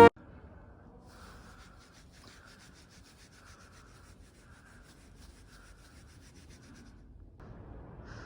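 Faint scratching strokes of a pen writing on paper, about two a second, pausing briefly about seven seconds in and then coming back a little louder.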